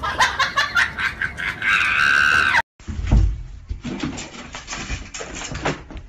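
A person shrieking and laughing in quick pulses, ending in a long held squeal that cuts off abruptly. Then a dull thump, with fainter knocks and rustles after it.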